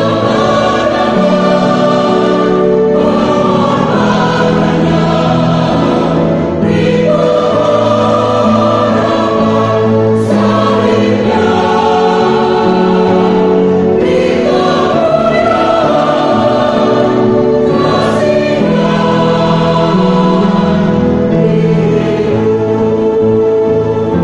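Mixed church choir singing a hymn together in long held phrases, with short breaks for breath between them.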